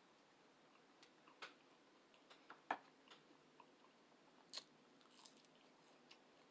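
Faint chewing and mouth sounds of a person eating McDonald's breakfast food, with a handful of short, soft clicks scattered through, the strongest about two and a half seconds in.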